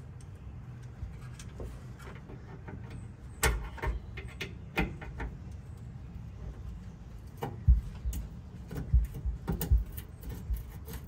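Scattered sharp metal clicks and taps as a rear brake-line retaining clip is worked loose from its frame bracket by hand. The clicks come more often in the last few seconds.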